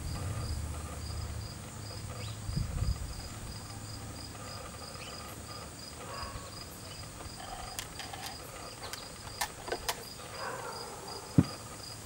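Insects chirping steadily, a continuous train of short, evenly spaced high chirps. A few faint clicks and one sharp knock come near the end.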